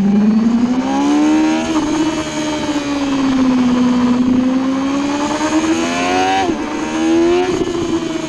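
Sportbike engine at track speed, heard onboard: the revs climb and drop sharply at gear changes, twice, over steady wind rush.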